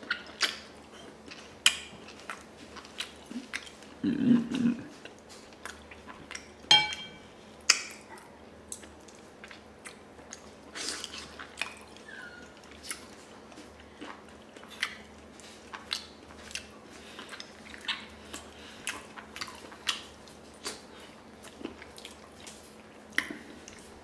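Close-up eating sounds of braised pig and chicken feet: irregular wet mouth smacks, sucking and chewing. A spoon is set down in a ceramic bowl with a short ringing clink about seven seconds in, and there is a brief low hum about four seconds in.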